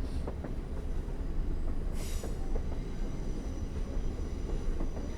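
Passenger train rolling along the track, heard from on board: a steady low rumble with scattered small clicks from the wheels on the rails, and a short hiss about two seconds in.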